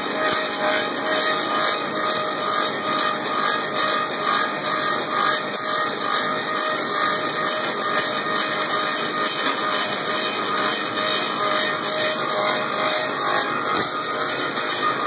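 Belt-driven Klotz handle lathe running steadily while its cutter shaves an axe handle out of a wooden blank.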